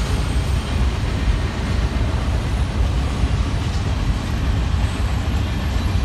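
Manifest freight train's cars rolling past on the rails: a steady, unbroken noise.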